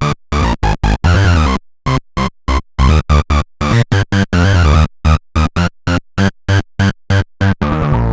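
Roland SH-201 synthesizer playing a trance/electronic preset as short, sharply cut stabs with silent gaps between them, in a rhythmic pattern. It ends on a longer held note.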